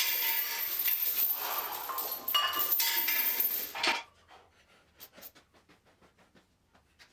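Metal gym weights clinking and rattling, with short ringing tones, for about four seconds, stopping abruptly; then faint, quick, evenly repeated ticks.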